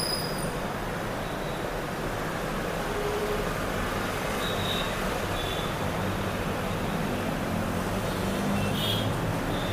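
Steady background noise, with a few faint, short high chirps about halfway through and again near the end.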